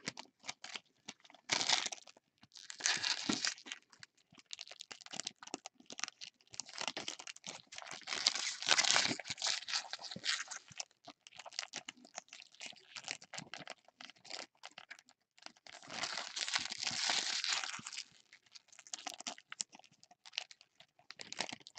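Foil football card pack wrappers crinkling and tearing in irregular bursts as packs are ripped open and handled by gloved hands.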